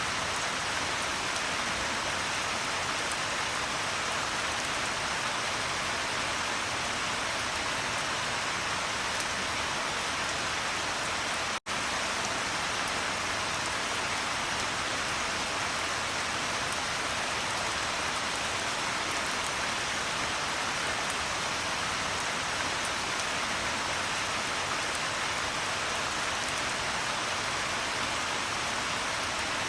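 Steady, dense rain pattering, an even hiss with no let-up. About twelve seconds in it cuts out for a split second, then carries on unchanged.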